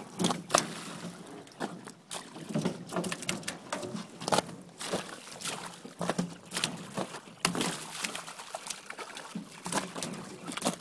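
Live carp flapping and slapping on a wet plastic tarp and splashing in the water of a truck's fish tank, with water pouring and trickling. The slaps and splashes come irregularly, several a second at times.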